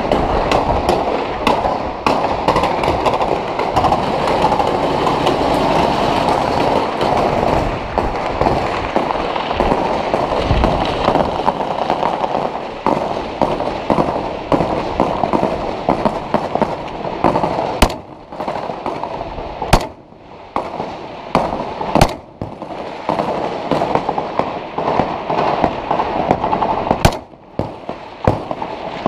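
Heavy small-arms fire in urban combat: a dense, continuous crackle of many rifle shots that thins out past the halfway mark. In the last third there are about four much louder single rifle shots close to the microphone.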